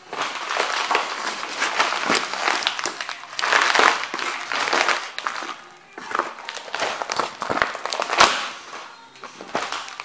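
Cofra Thermo rubber boots trampling a torn painting and its splintered wooden frame: continuous crumpling and crackling of the canvas sheet, with sharp cracks and stomps, the loudest crack about eight seconds in.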